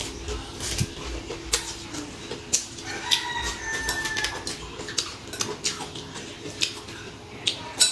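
Crisp, irregular crunching as raw water lily stems are bitten and chewed close to the microphone. A rooster crows once, about three seconds in.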